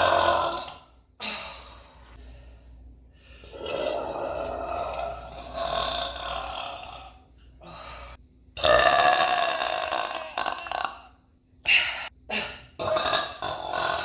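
A woman burping over and over: several long, drawn-out burps lasting a few seconds each, with short single burps between them.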